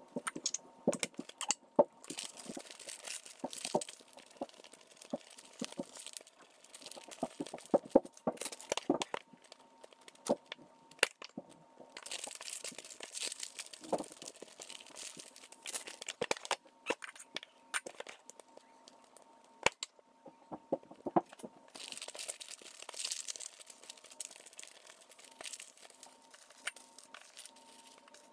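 Crinkling and rustling of a pastel's wrapping being folded and handled, with many small clicks and knocks in between.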